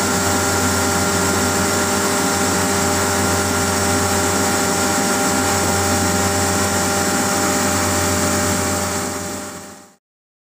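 Screw air compressor running loaded and building pressure: a steady machine hum with a constant hiss, fading out near the end.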